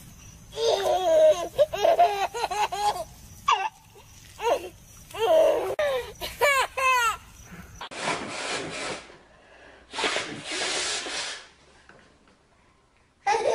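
A baby laughing in bursts, with sharp rising squeals. After a cut come two breathy, hissing bursts of about a second each.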